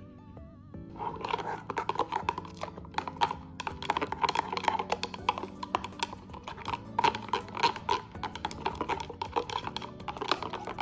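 Metal chopsticks briskly stirring half-set egg in a clear plastic microwave egg maker: a fast, continuous clatter of tapping and scraping against the plastic sides, starting about a second in.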